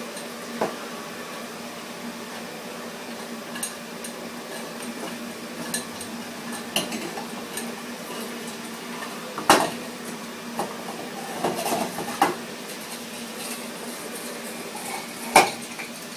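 Metal tins and utensils clinking and knocking as they are handled, with scattered light clicks and two louder metallic knocks, one about halfway through and one near the end, over a steady low hum.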